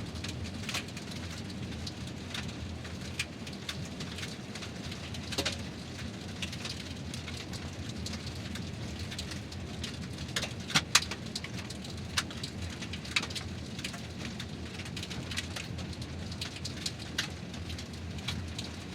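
Car driving over fine gravel: a steady low tyre rumble with scattered clicks of small stones, two sharper clicks close together about eleven seconds in.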